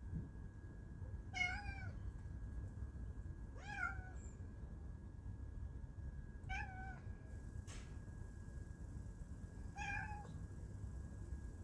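A cat meowing four times, a few seconds apart, each meow short and bending up then down in pitch. A faint steady high whine runs underneath.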